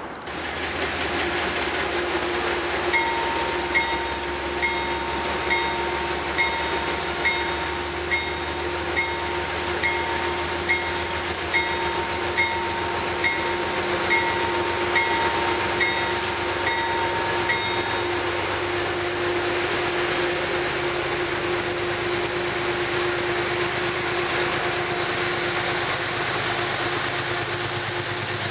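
GE P32AC-DM diesel-electric locomotive pulling a commuter train out of the station, its bell ringing about once a second for roughly fifteen seconds over the steady running of the diesel. After the bell stops, the locomotive and its coaches keep rolling past.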